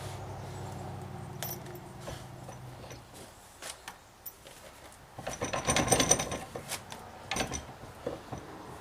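Hand tools working on metal parts: scattered metallic clicks, then a dense burst of rapid clicking and clinking past the middle, and a shorter burst near the end. A steady low hum stops about three seconds in.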